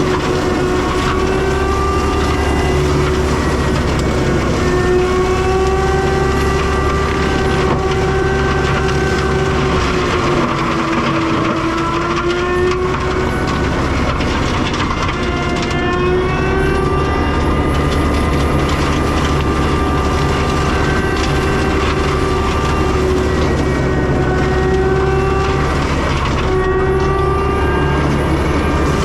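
CAT 299 compact track loader running hard with its forestry mulcher head spinning: a steady diesel drone under a high whine. The whine drops in pitch about ten seconds in, then climbs back, and dips again briefly a few seconds later.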